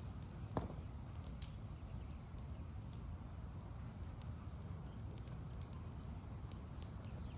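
Campfire crackling: irregular sharp pops and snaps over a steady low rumble, with one louder pop about half a second in.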